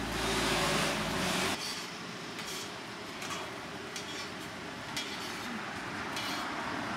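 Metal tongs and spatula clicking and tapping on a hotteok griddle, over a faint steady hiss of frying. A louder rushing noise with a low rumble fills the first second and a half, then cuts off sharply.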